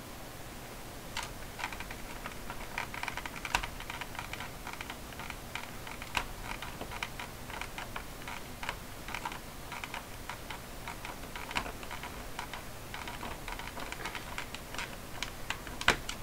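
Hands and a small tool working on the plastic back case and battery compartment of a Casio fx-7400G Plus calculator during reassembly: an irregular patter of light plastic clicks and taps, with a few sharper clicks.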